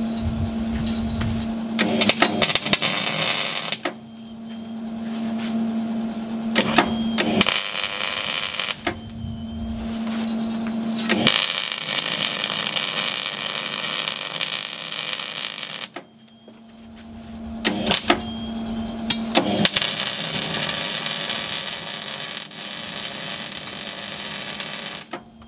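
MIG welding arc crackling and hissing on steel hull plate, in several runs of a few seconds each with short pauses between, the longest about five seconds.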